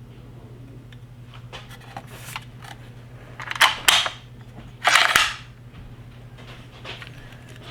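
Handling noise: two sharp clacks about three and a half seconds in, then a short, louder scraping rustle, over a low steady hum.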